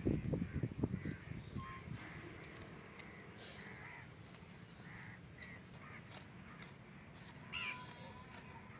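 Birds calling outdoors, a handful of short calls spaced out, after a few low thuds in the first second.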